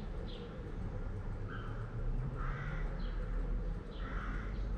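A bird cawing three times with harsh, crow-like calls, about one and a half, two and a half and four seconds in, over short chirps of small birds and a steady low background noise.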